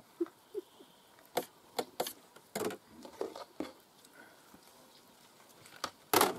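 Scattered light clicks and knocks at irregular intervals, about a dozen in all, the loudest one near the end.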